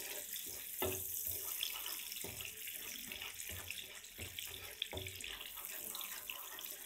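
Sugar and melted butter sizzling and crackling in a frying pan, with a spatula scraping and knocking against the pan every so often as it is stirred: the sugar is being cooked down in the butter toward caramel.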